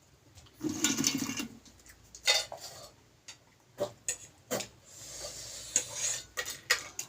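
Eating ramen noodles: a noisy slurp about a second in, then scattered sharp clicks of a utensil against the bowl.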